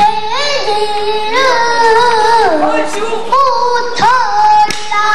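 A young girl singing pansori in long, wavering held notes, accompanied by a sori-buk barrel drum that is struck sharply twice near the end.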